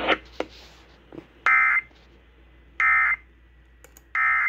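Emergency Alert System end-of-message tones: three short bursts of buzzing two-pitch digital data, a little over a second apart, marking the end of a severe thunderstorm warning broadcast. A few faint clicks come in the first second.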